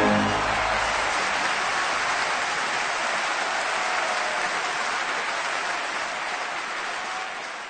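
Audience applauding after the last chord of an operatic aria, the applause steady at first and then slowly fading out.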